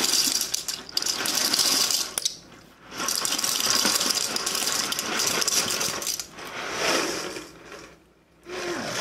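Dry medium pasta shells rattling in a cardboard box and clattering out into a slow cooker as the box is tipped and poured: a dense, steady rattle. It pauses briefly about two and a half seconds in and stops again near the end.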